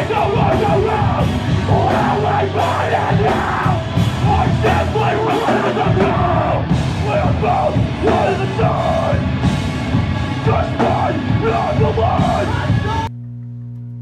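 Live heavy rock band playing loud, with a vocalist screaming into the microphone over pounding drums. About a second before the end it cuts off suddenly to a steady electrical hum.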